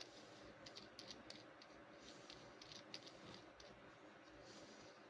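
Near silence with faint, scattered clicks and light rattles of the weed trimmer's handle parts being handled and fitted.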